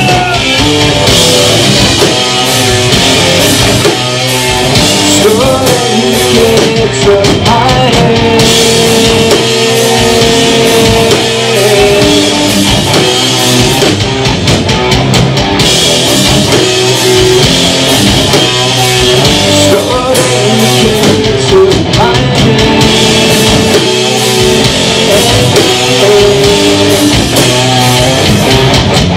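Loud live rock band playing: electric guitars and a drum kit, with a vocalist singing into the microphone.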